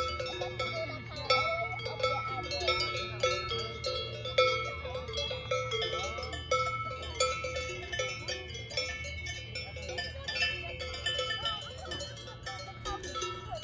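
Several large cowbells on cows clanking irregularly, their overlapping tones ringing on between strikes.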